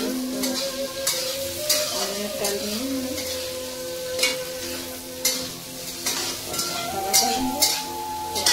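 Vegetables sizzling as they fry in a steel kadhai, with a metal spatula stirring and scraping against the pan in repeated, irregular strokes.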